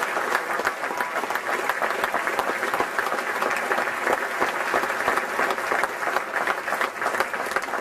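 Audience applauding: a dense, steady round of clapping from a room full of people.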